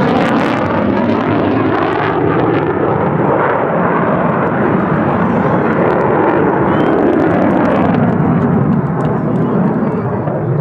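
Loud, steady jet noise of the F-35A Lightning II's single Pratt & Whitney F135 afterburning turbofan. Its high hiss thins out over the first few seconds while the deeper roar carries on.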